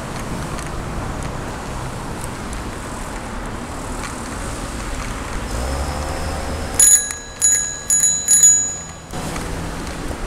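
Bicycle bell rung four times in quick succession about seven seconds in, each ring sounding on briefly in clear high tones, over steady background noise of riding.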